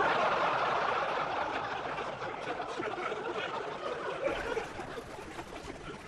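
Studio audience laughing: a burst of laughter that comes in all at once and slowly dies away.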